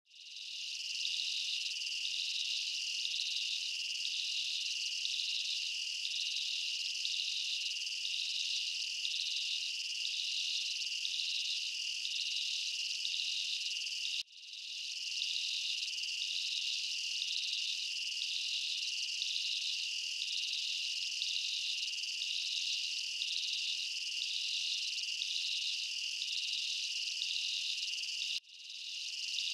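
Chorus of night insects: a steady high trill that pulses about twice a second. It cuts out and fades back in about halfway through, and again near the end.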